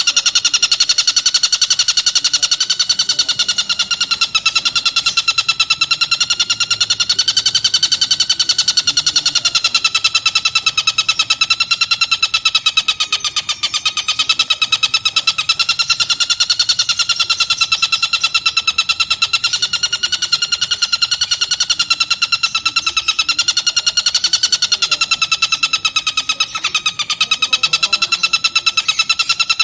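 Stork-billed kingfisher (tengkek buto) giving a long, unbroken rapid trill at a steady pitch that wavers slightly.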